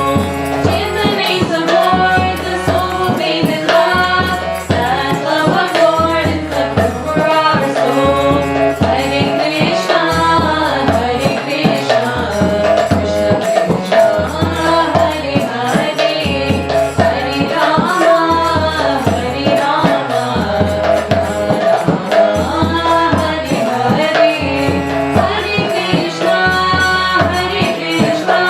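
Indian devotional bhajan music: a melody over a steady drum beat.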